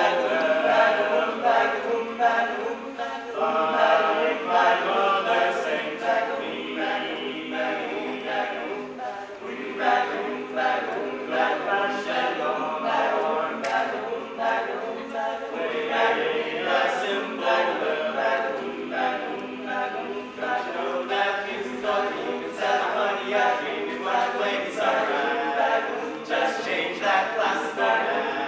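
All-male a cappella group singing in harmony, several voices at once, with sharp percussive hits every few seconds.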